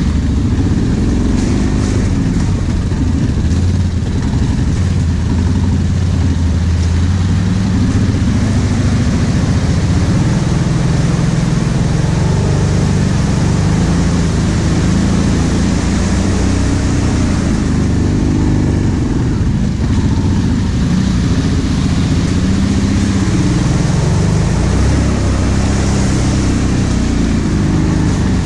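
ATV engine running under load as the quad rides along a muddy trail, its pitch rising and falling as the throttle is opened and eased off.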